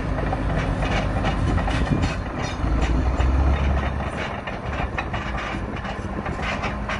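Large crawler bulldozer at work: its diesel engine runs under load while the steel tracks clank and rattle irregularly and the blade shoves rocky soil.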